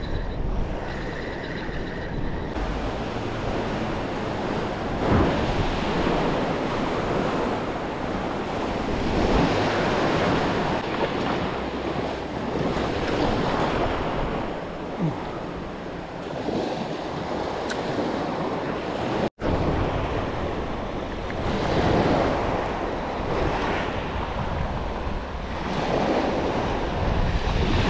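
Small waves breaking and washing up the sand, swelling and easing every few seconds, with wind buffeting the microphone.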